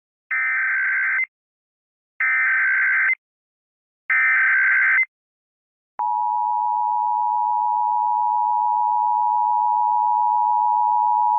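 Emergency Alert System broadcast opening: three short bursts of SAME digital header data, each about a second long with a warbling high chirr, then the steady two-tone EAS attention signal starting about six seconds in. This is the standard sound that precedes a spoken alert, here a tornado warning.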